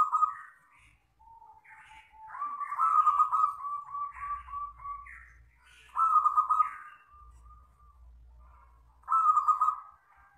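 Local Indonesian zebra dove (perkutut) cooing in repeated phrases. Each phrase opens with a soft lower note and breaks into a loud, clear run of quick staccato coos, the longest about two seconds after the start. The other phrases come at the start, about six seconds in and about nine seconds in.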